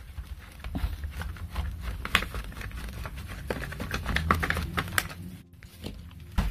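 Irregular small clicks, taps and scrapes of a screwdriver backing screws out of a Bosch cordless drill's plastic housing, with the case being handled.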